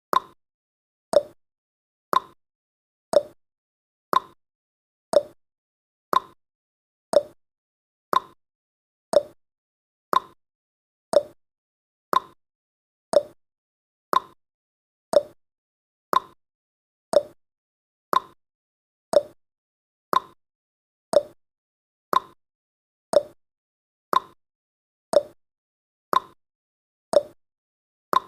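Countdown timer's ticking-clock sound effect: one sharp tick each second, alternating higher and lower in pitch like a tick-tock.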